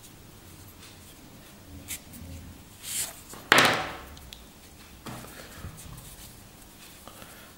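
Canvas watch straps being handled and flexed by hand: faint rustling and a few small clicks, with one loud, sudden, short noise about three and a half seconds in.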